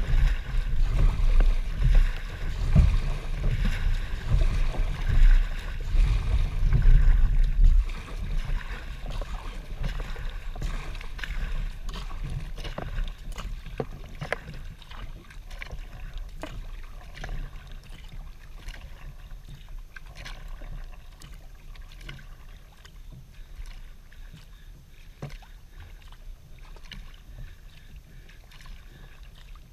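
Kayak being paddled: paddle strokes splashing, with water dripping and lapping against the hull in many small clicks. A heavy low rumble dominates the first eight seconds or so, then the sound drops to quieter splashes and drips.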